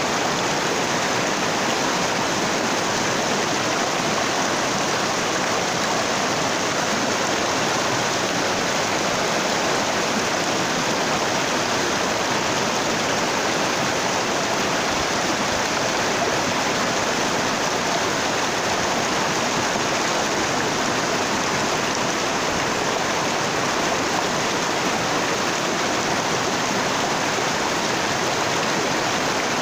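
Shallow rocky mountain stream running over boulders and stones, a steady water noise.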